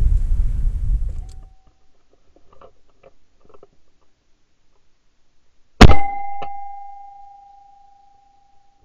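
Wind buffeting the microphone for the first second or so, then quiet with a few faint clicks. About six seconds in, a single shotgun shot: one sharp crack followed by a ringing tone that dies away over a few seconds.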